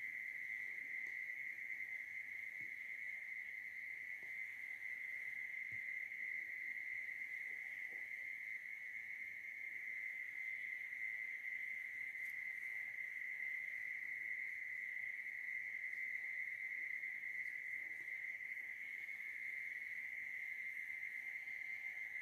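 Steady, unbroken high-pitched trilling of night insects.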